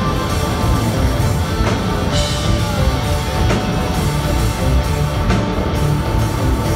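Loud live rock band playing, with electric guitar prominent, heard from the audience through a phone's microphone in a large venue.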